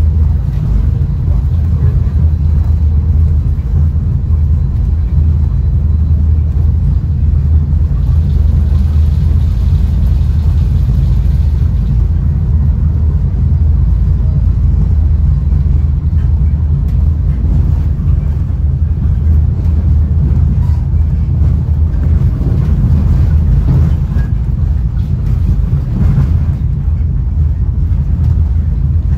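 Steady low rumble inside a Caltrain Gallery bilevel passenger car running at speed, its wheels riding the rails.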